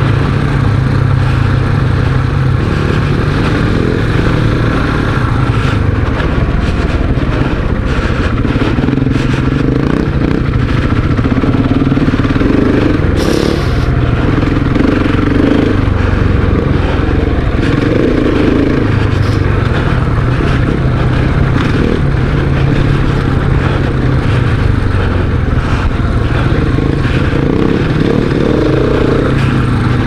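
Big single-cylinder dual-sport motorcycle engine running under way on a dirt forest road, its pitch rising and falling with the throttle. Stones and the rough surface clatter and knock throughout, and there is a brief hiss about thirteen seconds in.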